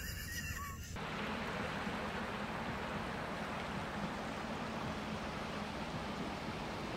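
Steady rushing of a fast-flowing river, starting about a second in.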